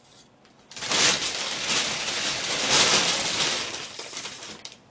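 Plastic bag crinkling and rustling as a stuffed toy is pulled out of it, starting about a second in and dying away near the end.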